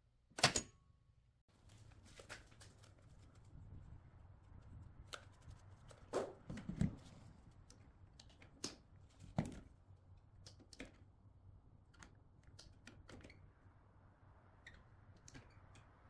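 A 60 amp double-pole circuit breaker snapping on with one sharp click just under half a second in. Then a scatter of small clicks and taps as multimeter test probes are set against the charger's wiring terminals and the clamp meter is handled with gloved hands, over a faint steady hum.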